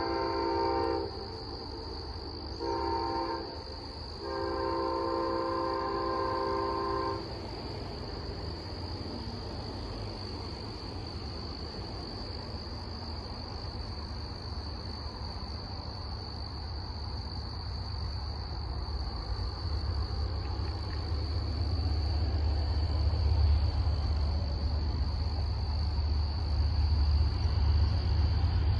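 An approaching diesel locomotive sounds its multi-chime air horn: a long blast ends about a second in, then a short one and a long one, the close of a grade-crossing signal. A low engine and rail rumble then builds steadily as the train nears.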